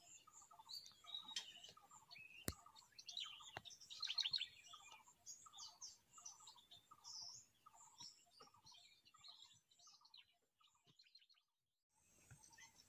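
Faint birdsong: one bird repeats a short low call about twice a second while other birds chirp higher, with a single sharp click about two and a half seconds in. The calls fade out near the end.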